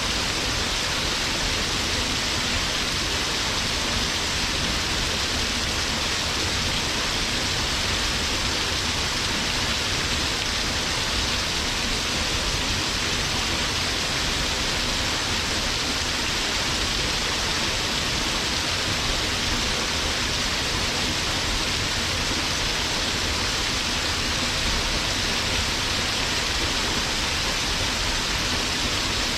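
Waterfall pouring steadily: a constant, even rush of falling water with no breaks.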